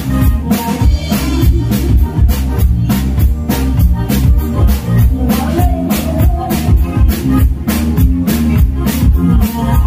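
Loud dance music with a steady, evenly spaced drum beat.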